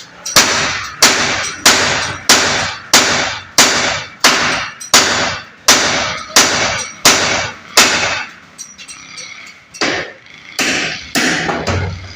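Hammer blows on metal, struck steadily about one and a half times a second, each with a short ring. After about eight seconds the blows become fewer and irregular.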